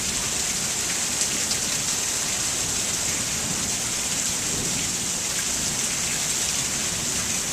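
Heavy monsoon rain pouring down steadily, an even unbroken hiss of rain on surfaces.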